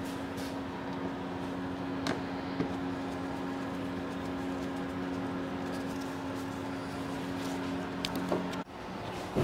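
A steady low machine hum on two held pitches, with a few light clicks and taps of a screwdriver tightening fasteners in the engine bay; the hum cuts off suddenly near the end.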